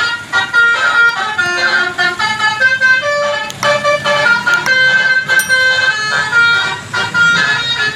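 Basuri-type 'telolet' multi-tone electric horn on an odong-odong ride vehicle playing a quick melody, its notes stepping up and down with several tones sounding together.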